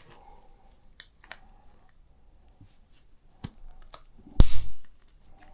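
Scissors cutting a battery terminal cap: a few light clicks, then one loud snip about four and a half seconds in.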